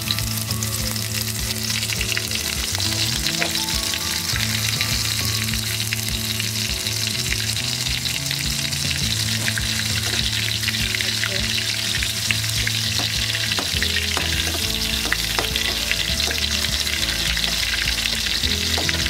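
Curry leaves, garlic, mustard seeds and bird's eye chili sizzling in hot oil in a metal kadai as a tempering. A metal ladle stirs them, with small clicks against the pan.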